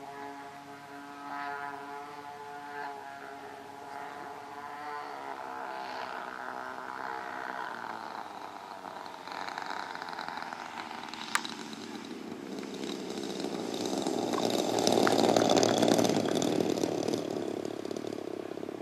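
Twin DLE 20 two-stroke gas engines of a large RC Cessna 310 model running in flight, their pitch dropping as the throttle comes back for the landing approach. The sound then grows louder and noisier as the plane comes in low and rolls out on the grass, loudest near the end, with one sharp click about eleven seconds in.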